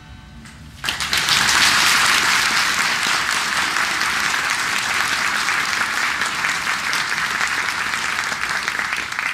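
The last notes of an acoustic guitar ring out, then audience applause breaks out suddenly about a second in and continues steadily.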